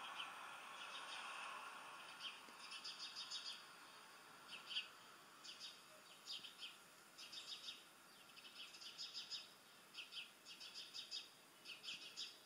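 Faint bird chirping in short bursts of quick trilled notes, repeating every second or so, from a wildlife video playing through laptop speakers.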